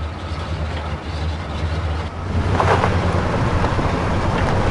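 A motor vehicle's engine running steadily, a low rumble with road or cabin noise over it. A short higher pitched sound cuts in about two and a half seconds in.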